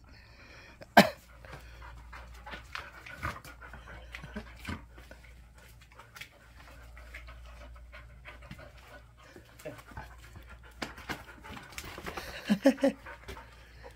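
Dogs panting, with scattered short clicks and scuffs and one sharp knock about a second in.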